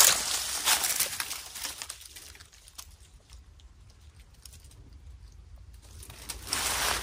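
Footsteps crunching through dry leaf litter, stopping for about four seconds in the middle, then starting again near the end.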